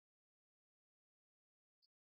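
Near silence: an essentially empty soundtrack with one faint click near the end.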